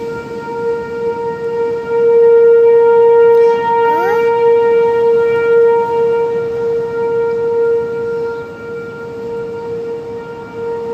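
Outdoor tornado warning siren sounding one long steady tone, its loudness swelling and fading slowly. A brief rising sweep cuts across it about four seconds in.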